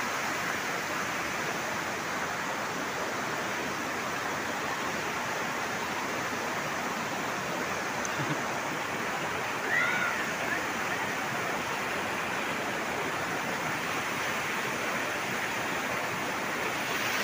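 Water rushing steadily across a small dam's crest and spilling over its rocky edge, a continuous even rush. A brief faint voice calls out about ten seconds in.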